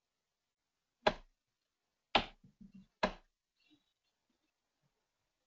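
Computer mouse clicking three times, about a second apart, as ports are selected and dragged in the mapping designer.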